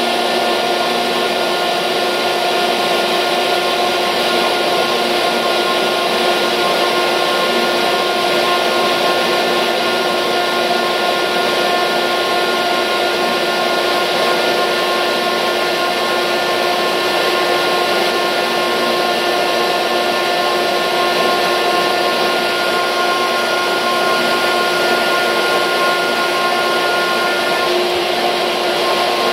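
Sullivan Palatek 50 HP rotary screw air compressor with its 480-volt electric motor running steadily: an even mechanical rush with several steady whining tones.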